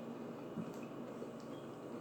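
Close-miked chewing of food, with soft wet mouth clicks and a small thump about half a second in.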